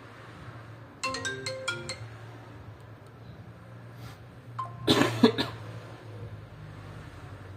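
A quick run of six or seven chime-like electronic notes stepping in pitch lasts about a second. Near the end, a louder, rough cough-like burst follows, over a low steady hum.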